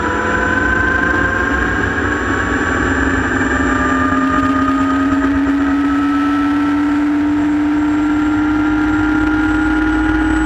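Light turbine helicopter's engine and rotor running on the ground, heard from inside the cockpit: a steady turbine whine over the rotor, its pitch rising slowly and evenly as it spools up.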